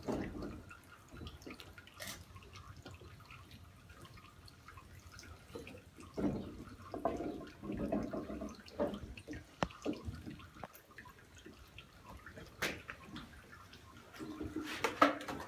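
Oil and water from a traditional screw olive press trickling and dripping out from under the pressed mats of olive paste into a stone basin, with a few sharp clicks.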